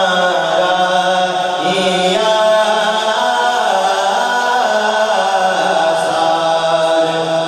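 A man chanting a naat, an Urdu devotional poem, into a microphone in long, held melodic lines that bend slowly from note to note.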